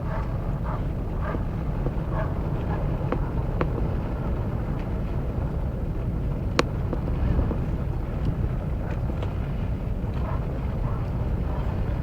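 Steady low rumble of a ferry's engines while it manoeuvres to berth, with faint distant voices and a single sharp click a little past halfway.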